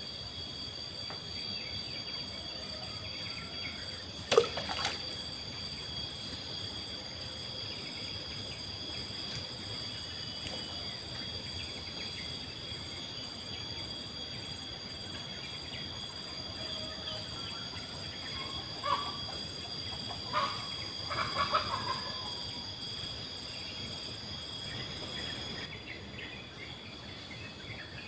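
Steady, high-pitched drone of insects at two pitches, with one sharp loud sound about four seconds in and a few short chirps a little past the middle; the higher insect tone stops near the end.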